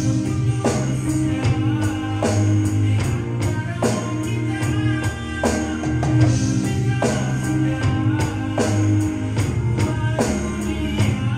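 A recorded pop-rock song with singing and full band, and drums played along on an electronic drum kit in a steady beat with cymbal hits.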